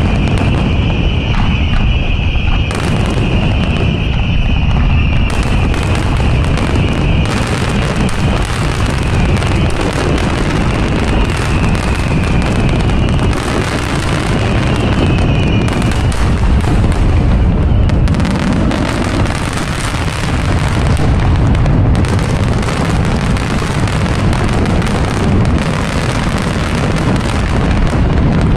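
Large aerial fireworks display going off in a continuous rapid barrage, shell bursts following one on another with no break. A high steady tone rides over the first half and fades out a little past the middle.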